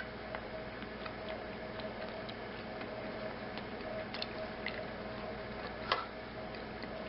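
Eating sounds: a spoon making scattered light ticks against a plate, with one sharper click about six seconds in, over a steady room hum with a faint constant tone.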